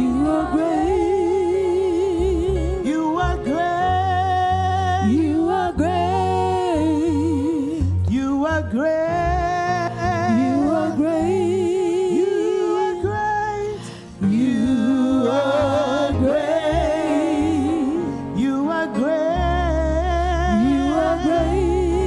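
Gospel praise-and-worship music: a sung voice with heavy vibrato and sliding notes over a low bass line, briefly dipping about two-thirds of the way through.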